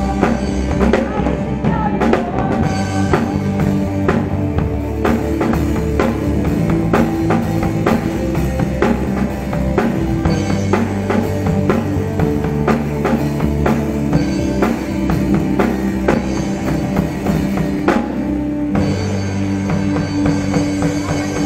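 Drum kit played up close, with snare, bass drum and cymbal hits driving a live band of bass, guitar and keyboard in a steady rock beat. The cymbals drop out for about a second near the end, then come back in.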